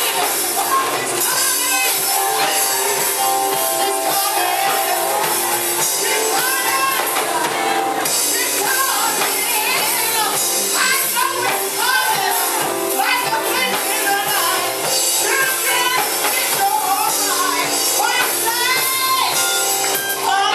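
Live gospel choir singing with band accompaniment and a tambourine shaking along.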